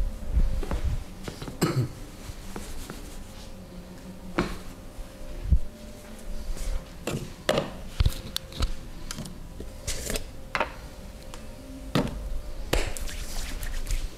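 Irregular sharp taps and clicks, about a dozen spread unevenly, over light rustling, from hands and tools working close to the microphone during a barber's head and face massage.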